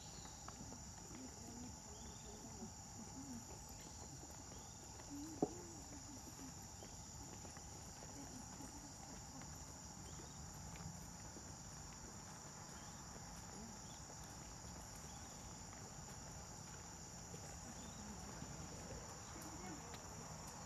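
Faint, steady, high-pitched insect chorus, with one sharp click about five seconds in.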